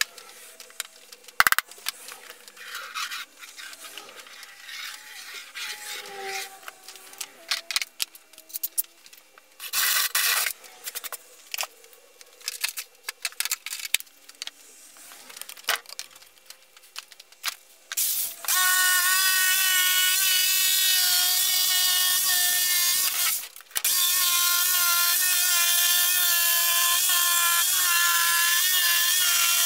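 Ryobi corded jigsaw cutting a circle out of a plywood sheet, running steadily from about two-thirds of the way through, with a short stop about five seconds after it starts. Before that, scattered clicks and knocks and one brief loud burst about ten seconds in.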